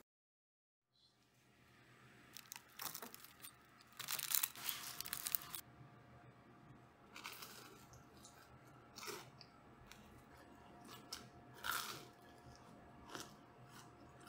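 Crunching of crisp air-fried toast being cut with a knife, loudest about four to five seconds in, followed by a few shorter crackles and taps. A faint steady hum runs underneath.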